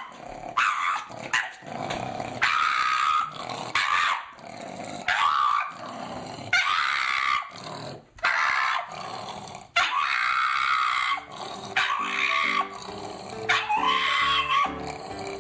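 A pug makes a long run of drawn-out howling, grumbling calls, one after another, rising and falling in pitch. Ragtime piano music comes in underneath about eleven seconds in.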